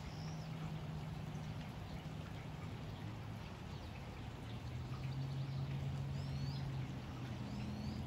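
Steady spring rain falling on a blossoming tree, with a few short bird chirps, one near the start and a couple more near the end. Under it runs a low steady hum that shifts pitch a couple of times.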